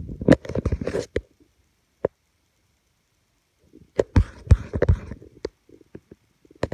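Rumbling rustles and knocks of a phone being handled and moved close to the microphone, in two bursts: one lasting about a second at the start, another about four seconds in lasting about a second and a half.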